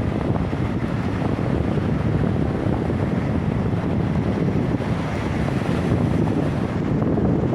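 Wind buffeting the microphone, a steady low rumbling noise, over the wash of Baltic Sea surf.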